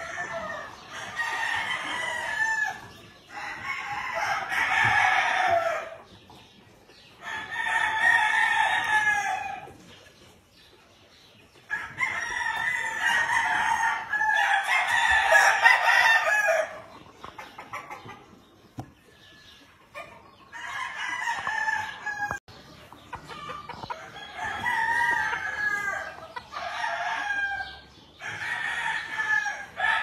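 Gamefowl roosters crowing again and again, about ten crows each lasting one to two seconds, one after another with short pauses between.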